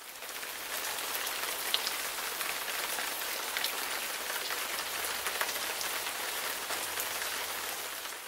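Steady rain falling: an even hiss with scattered drop ticks, fading in at the start and fading out near the end.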